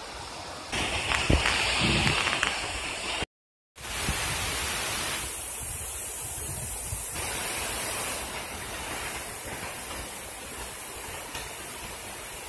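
Steady rush of water pouring over a river dam. In the first seconds it is louder, with a few knocks, then it cuts to silence for about half a second and returns steady.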